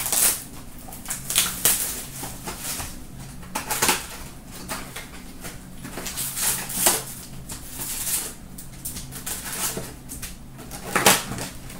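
Cardboard hobby box of SP Authentic hockey card packs being opened by hand and the wrapped packs lifted out: irregular crinkles, scrapes and light taps of card stock and wrappers, over a faint steady hum.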